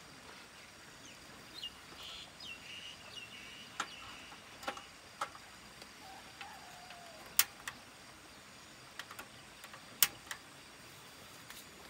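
Light metal clinks and taps from a stovetop moka pot and a spoon, then a sharp click from a portable gas stove's igniter, about ten seconds in, as the burner is lit. Birds chirp faintly in the first few seconds.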